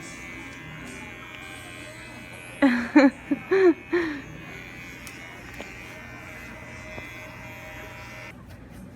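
Electric hair clippers buzzing steadily, switching off about eight seconds in. About three seconds in a voice makes five short sounds that rise and fall in pitch, the loudest thing here.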